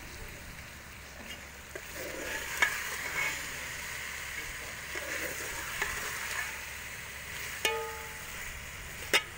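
Chicken korma with green chillies sizzling in masala in a metal pot while a metal ladle stirs and scrapes through it, with a few sharp clinks of the ladle against the pot, one of which rings briefly.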